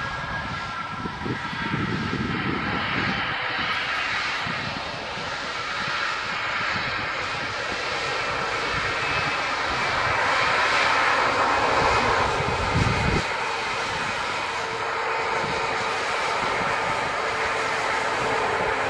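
Embraer E-Jet airliner's turbofan engines running as it moves along the runway: a steady rushing jet noise with a whine over it, swelling louder for a few seconds past the middle.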